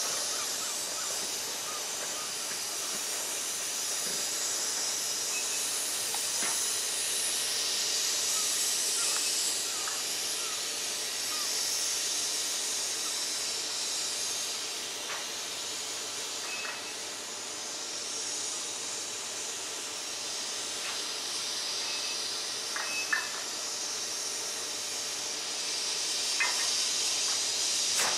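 Steady hiss of steam escaping from the open cylinder drain cocks of the RSH-built National Coal Board No.49 saddle-tank steam locomotive as it moves slowly, with no exhaust beat heard, and a few light knocks near the end.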